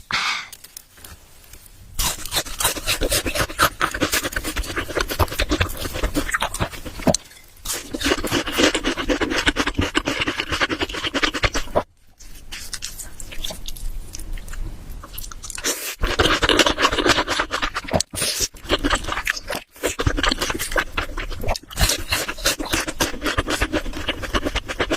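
Close-miked, wet chewing and mouth sounds of someone eating curry and rice, with a few short pauses between mouthfuls.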